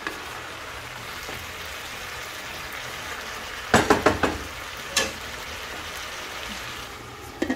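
Cabbage, carrots, green beans and peppers sizzling in a nonstick pan with a steady hiss as a wooden spatula stirs them. The spatula knocks against the pan in a quick cluster about four seconds in, and once more a second later.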